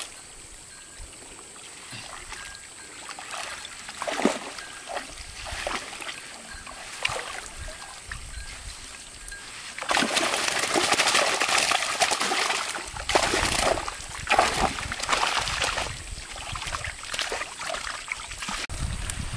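Water splashing and trickling: scattered small splashes at first, then a louder stretch of continuous splashing from about halfway through.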